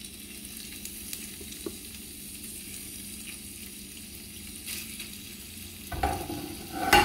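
Thin strips of beef frying in a spoonful of hot oil in a nonstick frying pan: a steady sizzle with small crackles. It grows louder near the end as the meat is moved about in the pan.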